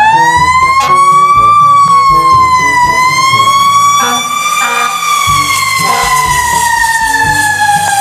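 Fire truck siren wailing in slow rising and falling sweeps, its pitch winding steadily down over the last few seconds.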